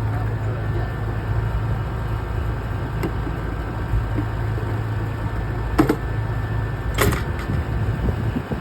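Daikin air-conditioner condenser unit running with a steady low hum. Two sharp clicks come near the end.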